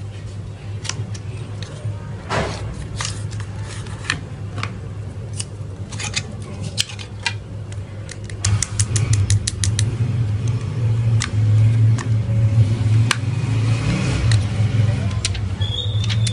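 Irregular sharp clicks and taps of a blush compact and its packaging being handled and opened. A steady low hum underneath grows louder about halfway through.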